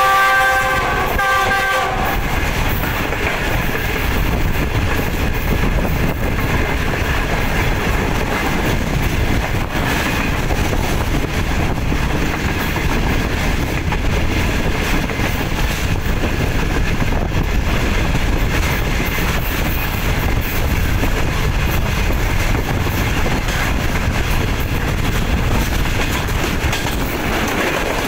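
A locomotive horn sounding a chord of several notes, cutting off about two seconds in. Then the steady rumble and clickety-clack of a passenger train's coaches running at speed over the rails, heard from an open coach window.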